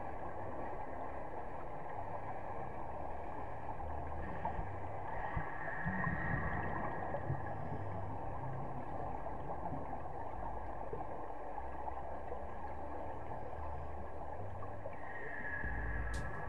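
Underwater sound of scuba divers breathing: a steady low rumble and hiss of water, with longer spells of bubbling from regulator exhalations about five seconds in and again near the end, and a sharp click just before the end.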